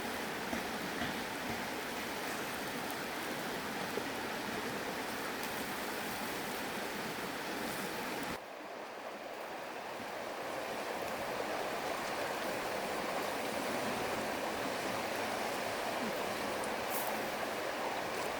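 Steady rush of flowing river water. The sound drops suddenly about eight seconds in, then builds back up.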